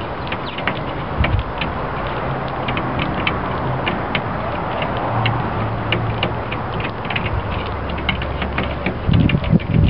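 Sparrows pecking seed off a glass tabletop: a rapid, irregular patter of sharp beak clicks on the glass, like Morse code. A steady low hum runs underneath, and a few low thumps come near the end.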